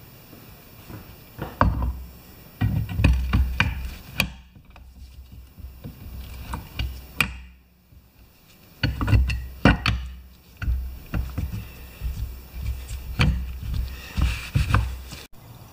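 The metal gear-and-axle assembly of a lawn tractor differential is handled in and around its opened housing on wooden blocks: irregular clunks and knocks with bits of scraping and rubbing. There is a quieter stretch about a third of the way in.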